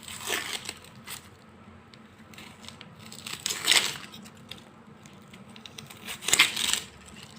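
Dry, papery onion skins being peeled off by hand: crackling and tearing, in three louder bursts about three seconds apart with small crackles between.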